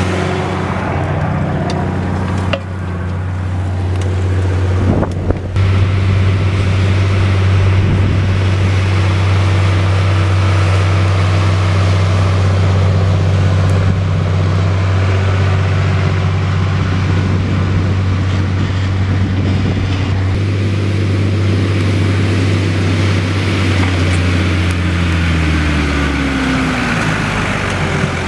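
Fendt Favorit 512 C's six-cylinder diesel engine running steadily under load while ploughing, a low, even drone. Near the end the engine note falls.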